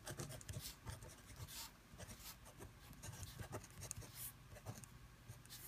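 Pen writing on paper: faint, short scratching strokes as a row of letters is written out by hand.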